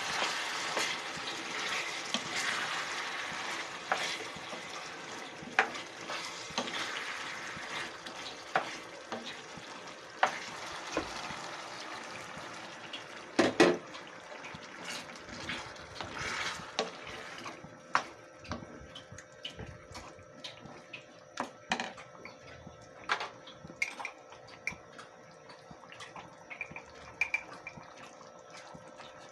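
Tomato sauce and diced potatoes sizzling in a pan, with a wooden spoon stirring and tapping against the pan. After a cup of water goes in, the sizzle dies away about 17 seconds in, leaving only scattered spoon taps and clinks.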